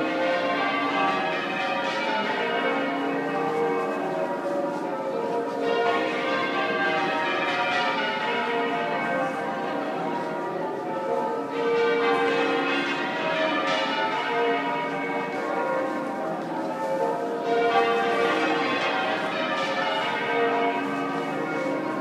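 Change ringing on St Paul's Cathedral's ring of twelve bells, rung half-muffled: a continuous stream of struck bell notes, with a brighter, sharper round of strikes coming back about every six seconds between duller rounds.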